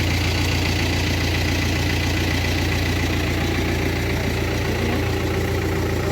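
Tractor engine idling steadily, a constant low hum.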